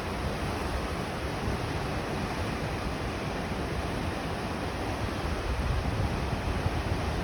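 Ocean surf breaking and washing against the shore, a steady rush of noise, with gusty wind buffeting the microphone that grows stronger near the end.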